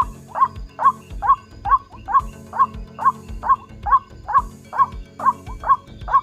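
White-breasted waterhen's 'kru-ak' call, repeated in a steady, rhythmic run of short hoarse notes, a little over two a second.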